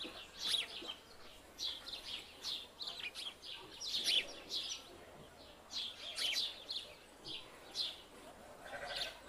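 Small birds chirping: an irregular run of short, high, downward-sweeping calls, several a second.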